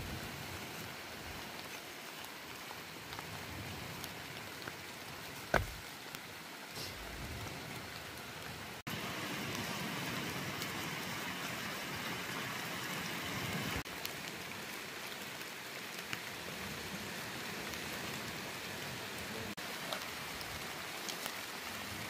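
Steady rain falling, an even hiss, with one sharp knock about five and a half seconds in; the rain gets suddenly louder about nine seconds in.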